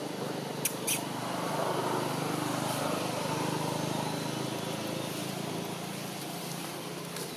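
Steady outdoor background noise, possibly a distant engine hum, that swells a little a couple of seconds in and eases off, with two short clicks just under a second in.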